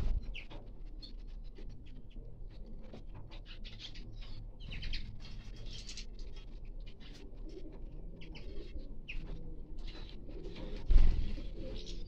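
Small finches twittering, many short high chirps and calls overlapping, with European goldfinches among them. There is a single low dull thump about eleven seconds in.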